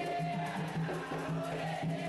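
Candomblé ritual music: hand drums (atabaques) beating a steady, quick rhythm under voices singing a chant for the orixás.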